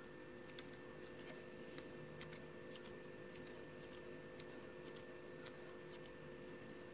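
Very quiet room with a faint steady electrical hum and a few faint, scattered ticks from hands working tatting thread and shuttle while tying double stitches.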